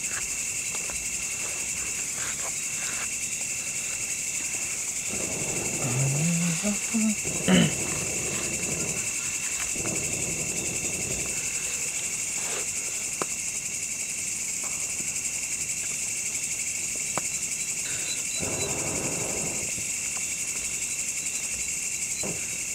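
Crickets chirring steadily in a continuous high drone. A brief low murmur of a voice comes about six seconds in, and there are a few light clicks.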